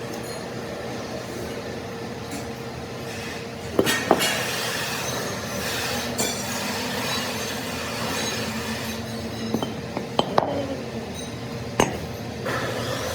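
Sharp metal-on-metal clinks and knocks from steel parts being handled or struck, a pair about four seconds in and a cluster of four near the end, each with a brief ring, over a steady machine hum.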